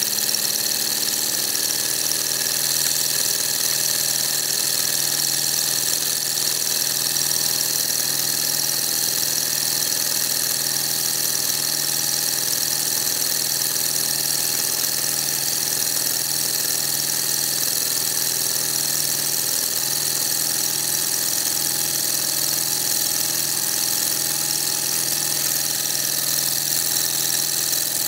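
Miniature hot-air Stirling engine, heated by an alcohol burner, running steadily with a constant mechanical hum.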